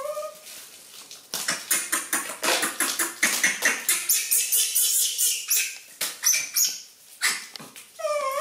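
Rapid, dense crinkling of plastic packaging being handled and unwrapped, with a short, high animal cry at the start and again near the end.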